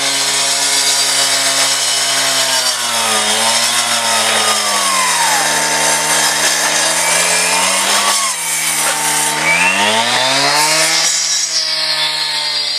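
Power saw cutting wood. The motor's pitch sags twice as the blade bites under load, then climbs back up.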